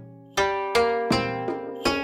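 Background music: a plucked string instrument playing a melody, about two to three notes a second, each note struck sharply and left to ring and fade.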